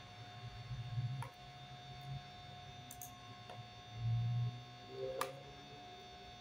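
Faint steady electrical hum with many pitches, broken by three sharp mouse clicks about one, three and a half and five seconds in. Two low dull bumps come around one and four seconds in, the louder near four.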